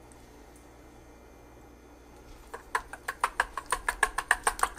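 A wire whisk beating an egg into thick chocolate brownie batter in a stainless steel bowl. From about halfway in, the whisk strikes the bowl's side in quick, regular clicks, about six a second.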